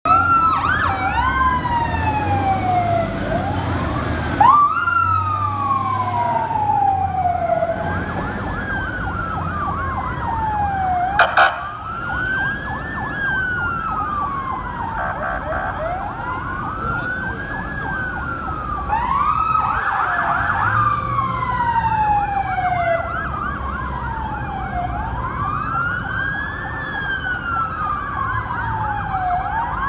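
Several emergency vehicle sirens wailing at once, their slow rising-and-falling sweeps overlapping out of step, over the low rumble of idling truck engines. A brief sharp clatter cuts in about eleven seconds in.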